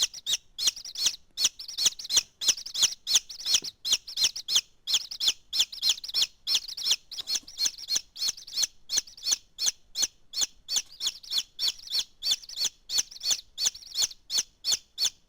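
Domestic chicks peeping: a fast, steady series of short, high chirps, about three a second.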